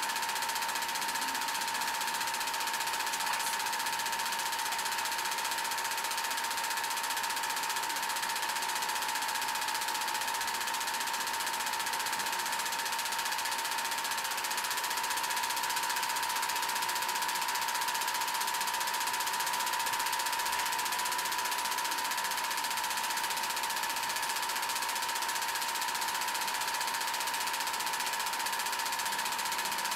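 Home-movie film projector running steadily: a continuous mechanical clatter from the film transport with a constant high hum.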